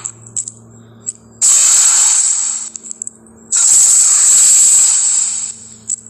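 Dinosaur sound effect: two loud hisses, the first a little over a second long and the second about two seconds, with a few faint clicks before and between them.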